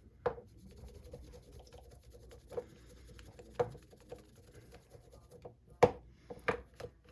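Fishing reel parts being handled and taken apart by hand on a workbench. About six sharp clicks and knocks are spread through it, the loudest about six seconds in, with light scratching and rubbing between them.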